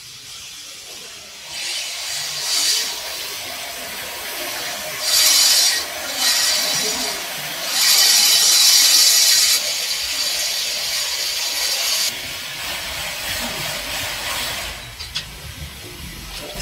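Rubbing, hissing friction of cotton yarn being pulled and twisted by hand into rope. It comes in several stretches that start and stop abruptly, loudest in two bursts near the middle.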